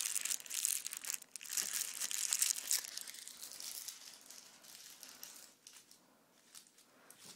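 A crinkly cat toy crinkling and rustling as the cat handles it on a bed: dense crinkling for the first three seconds, then thinner, scattered rustles that fade out.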